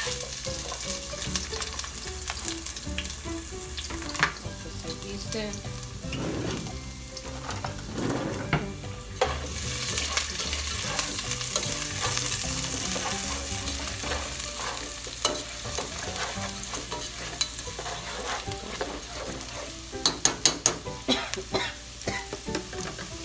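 Chopped onion and minced garlic sizzling as they fry in hot oil in a nonstick pot, the sizzle loudest right at the start as they are scraped in. A quick run of sharp taps comes near the end.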